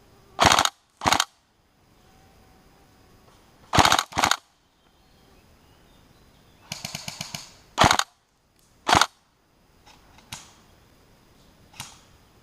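Airsoft electric rifle, the Tokyo Marui SCAR-H, firing short full-auto bursts: six loud bursts of rapid shots, in pairs about a second apart. Around seven seconds in, a quieter, evenly spaced string of about eight shots from another airsoft gun. Near the end come a couple of faint single cracks.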